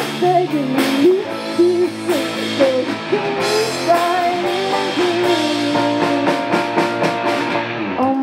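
A live indie rock band plays: electric guitars with drums under a woman's sung melody that slides between held notes.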